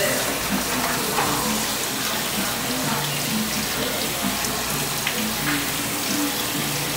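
Kitchen faucet running steadily into a stainless steel bowl of beans in a steel sink as the beans are rinsed by hand.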